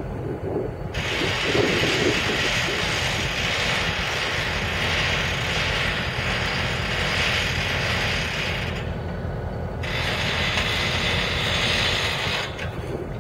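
Hand brake on a covered hopper car being wound on, its ratchet clicking rapidly for about eight seconds, then after a short pause wound a few seconds more as the brake is tightened to secure the car.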